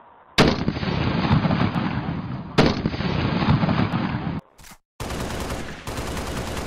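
Automatic gunfire in long bursts of rapid fire, starting about half a second in, breaking off briefly a little after four seconds, then starting again.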